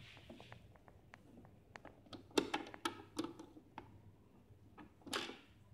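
Screwdriver and small plastic parts clicking and tapping inside a plastic coffee-machine housing. There is a quick run of clicks about two and a half seconds in, and a short scrape near the end.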